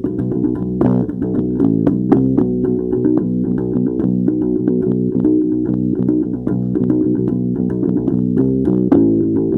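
Music on plucked strings, guitar with a prominent bass line, playing continuously with many picked notes.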